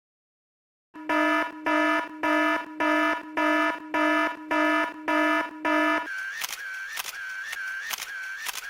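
An electronic alarm buzzer sounds about ten buzzy beeps, about two a second, after a moment of silence. About six seconds in it gives way to a quieter repeating click-and-chirp effect at a similar pace.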